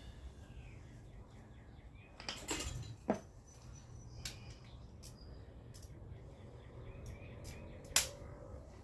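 Scattered light clicks and a knock from tools and small metal parts being handled during a brake job, over a low steady hum. The sharpest click comes near the end.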